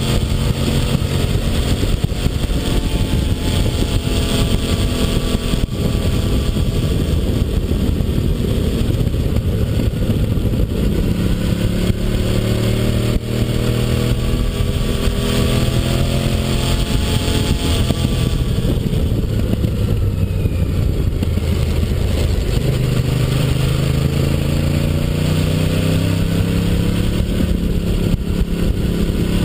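Honda VTR1000 SP-1's litre V-twin engine pulling under way, its pitch rising and falling several times as it accelerates, shifts and eases off, over a steady rush of wind and road noise.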